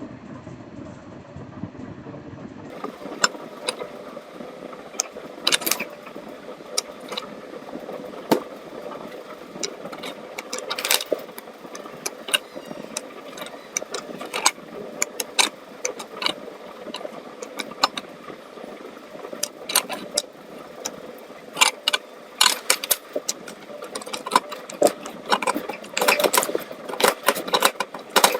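Chalk pencils being bitten and chewed close to the microphone: sharp, irregular crunches starting about three seconds in and coming thicker near the end, over a steady low hum.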